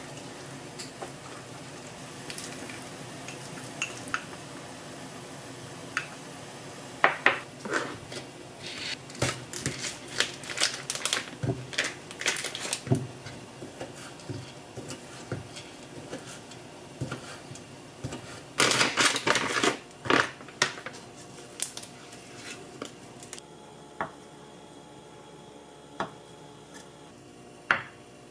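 Kitchen prep: a wooden spoon stirring and clinking in a small ceramic ramekin, then a chef's knife slicing sausages and knocking on a wooden cutting board. Sharp clicks and knocks come in quick runs, thinning out to single knocks near the end.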